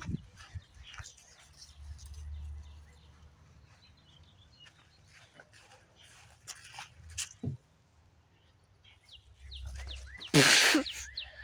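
Small birds chirping on and off, over a low rumble that swells and fades twice, with a brief loud burst of noise near the end.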